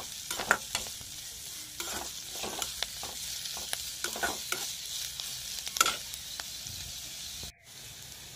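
Chopped onion, green chilli and curry leaves sizzling in groundnut oil in a kadai while a slotted spatula stirs them, scraping and knocking irregularly against the pan. The sound cuts out briefly near the end.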